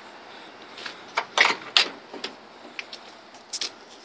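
A 1988 one-ton pickup truck's driver door being opened and someone climbing into the cab: a cluster of latch clicks and knocks about one to two seconds in, and a couple more near the end.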